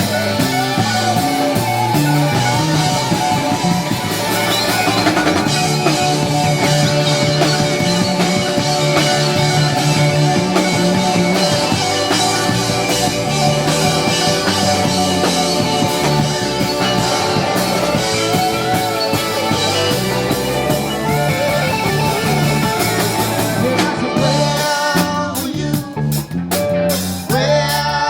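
A live rock band playing an instrumental passage, with electric guitar, bass and drum kit. Near the end the full band sound breaks up into sparser, choppier hits.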